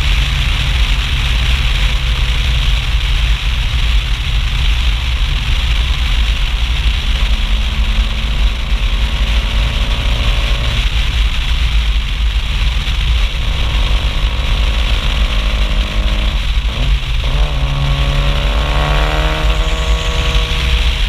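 Mitsubishi Lancer Evolution IV's turbocharged four-cylinder exhaust while driving on the road, heard close at the rear over heavy wind rumble on the microphone. The engine note holds steady for long stretches, breaks off briefly about three-quarters of the way through, then climbs as the car accelerates.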